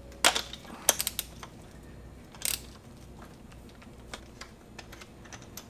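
Scattered light metal clicks and clinks from hand tools working the damper rod nut on a Showa motocross fork, bunched in the first second or so, with a short scrape about two and a half seconds in and faint ticks after.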